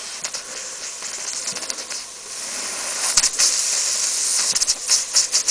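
Steam hissing through a LiNEy Machine Thimble miniature brass steam engine that has stalled at too slow an idle, with scattered ticks as it is restarted by hand. From about three seconds in the hiss grows louder and the engine picks up, its exhaust beats coming fast and even near the end.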